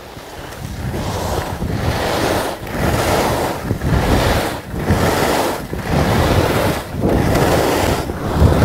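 Skis carving across groomed snow in a run of linked turns, a rushing scrape that swells and dips about once a second, with wind buffeting the microphone.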